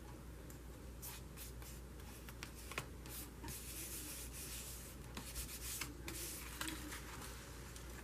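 Hands rubbing and smoothing glued paper down onto a journal page: soft papery scraping in stretches, with a couple of sharp ticks.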